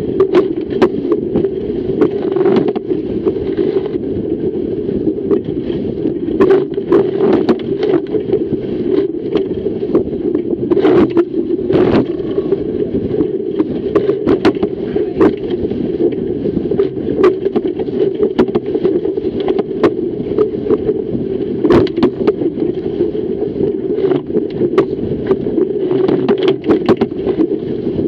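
Fireball racing dinghy driving through chop: a steady rush of water and wind along the hull, broken by frequent sharp, irregular slaps as waves hit the bow and spray.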